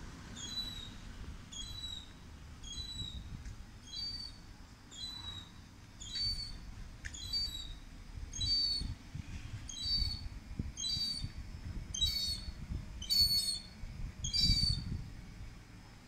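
Juvenile gull giving its thin, high begging call over and over, a little more than one short call a second, growing louder toward the end.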